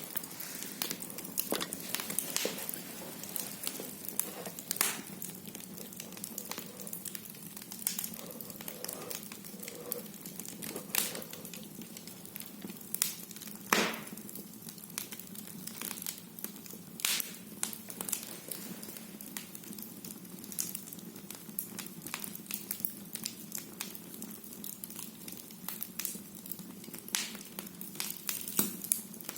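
Firewood burning in a fireplace, crackling and popping over a steady low hiss, with a few louder pops about eleven, fourteen and seventeen seconds in.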